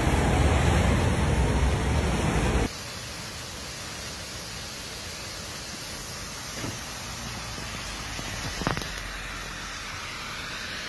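Severe storm wind and heavy rain with a loud, deep rush, cutting off abruptly about two and a half seconds in. A quieter, steady hiss of heavy rain follows, with two faint thumps in the second half.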